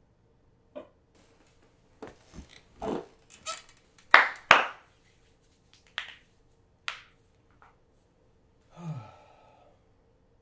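A person shifting and settling in a leather recliner: scattered creaks, rustles and hand sounds, loudest a pair of sharp smacks about four seconds in. Near the end comes a short low sigh falling in pitch.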